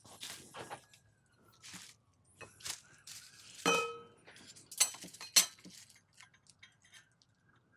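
Steel engineer's square and feeler gauge clinking and tapping against a plane iron while it is checked for flatness: scattered sharp metallic clicks, one just before the middle ringing briefly, the loudest two just after.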